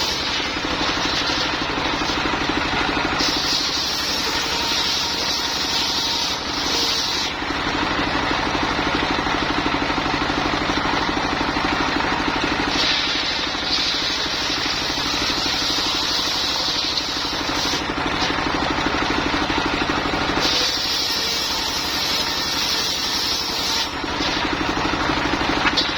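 Engine-driven mobile circular sawmill running steadily as it saws lamtoro (leucaena) wood. A higher hiss rises and falls in stretches of a few seconds, about four times.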